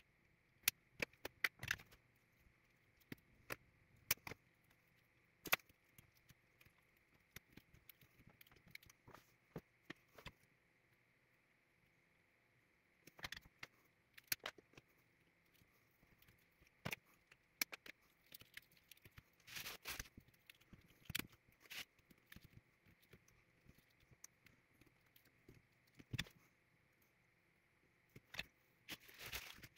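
Scattered faint clicks and light metallic clinks of copper wire and capacitor leads being handled and soldered on a cardboard-mounted capacitor bank, busiest around twenty seconds in and near the end.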